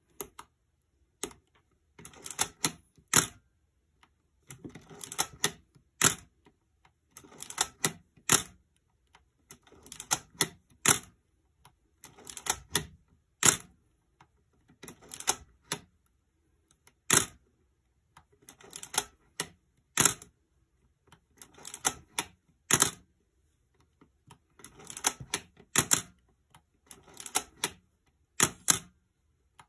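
Nikon F3 35mm SLR body being cycled over and over, about once every two and a half seconds: each time a short run of small clicks from the film advance lever being wound, then the sharp clack of the shutter and mirror firing.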